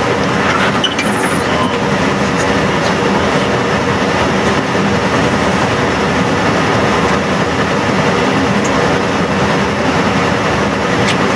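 Steady cockpit noise of an airliner in flight on approach: an even, loud rush of airflow and engine noise with no breaks.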